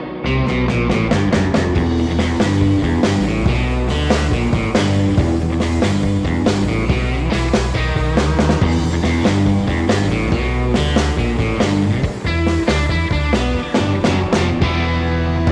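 Rock music with electric guitar, bass and drums.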